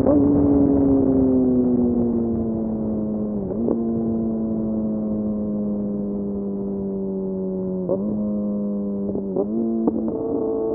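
Kawasaki Ninja ZX-6R inline-four running through an M4 exhaust with the dB killer removed, at steady cruising revs that sag slowly. The note dips briefly a few times, about three and a half seconds in, around eight seconds, and twice near nine and a half seconds, then settles slightly higher near the end.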